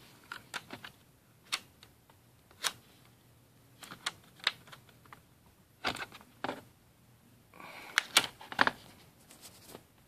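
Irregular clicks and taps of a laptop hard drive in its metal caddy being handled and pried out of the drive bay, with a few louder knocks around six and eight seconds in.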